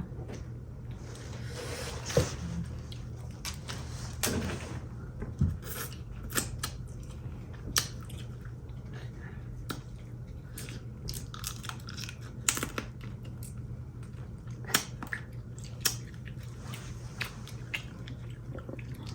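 Eating a seafood boil by hand: shellfish shells cracked and peeled, with chewing and many short, scattered clicks and crackles over a steady low hum.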